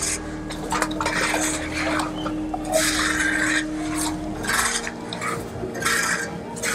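Rough scraping strokes, irregular, about one to two a second.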